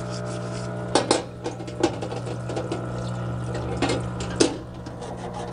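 Parts-washer pump running with a steady hum while cleaning fluid streams from its flexible nozzle. A green scouring pad scrubs brake pad hardware, with several sharp clicks and knocks as the metal parts are handled in the tub.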